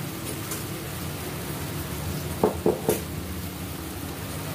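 Water-based spice tempering in a steel kadhai bubbling and sizzling steadily as it comes up to the boil on a gas burner. About two and a half seconds in, three quick knocks of the steel spatula against the pan.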